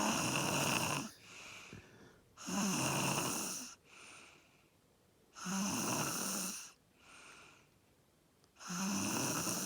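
A man snoring in his sleep: four loud snores about three seconds apart, each lasting about a second with a low buzz, and softer breaths between them.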